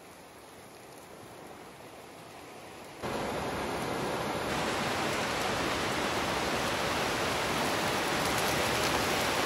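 Flash-flood debris flow of mud, logs and brush churning down a creek channel: a steady rushing noise that jumps much louder about three seconds in.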